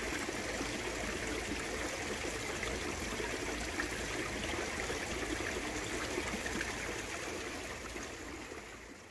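Steady sound of running water from the pond's waterfall or stream feature pouring into the pond, fading out near the end.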